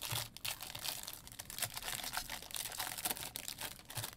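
Wrapper of a Topps Series 1 jumbo baseball card pack being torn open and crinkled by hand, a fast run of crackles and small tearing clicks, with the card stack handled near the end.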